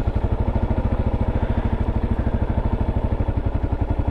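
A vehicle engine idling with a steady, rapid, even pulse.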